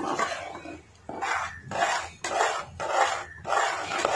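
Metal spoon stirring a thick vegetable and tomato mash in a pot, scraping the pot in regular strokes about twice a second.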